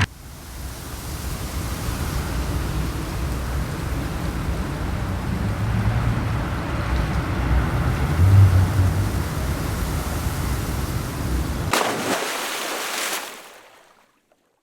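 Steady rushing of wind and sea, with a low wind rumble on the microphone. Near the end the low rumble drops out suddenly and the noise fades away.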